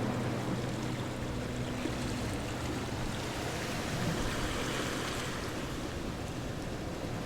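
Steady rushing water of a stream, with a low hum that fades out about two seconds in.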